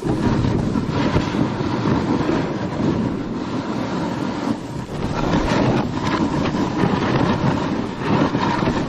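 Wind rushing over the microphone together with the hiss and scrape of snow under a fast downhill descent on skis or board, a steady loud noise with a short lull about halfway through.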